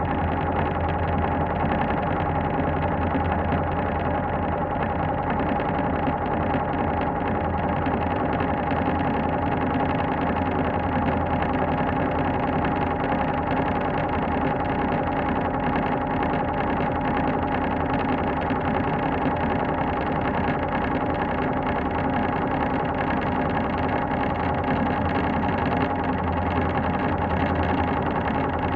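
Elevator running: a steady mechanical hum with a held mid-pitched tone over a low drone, unchanging throughout.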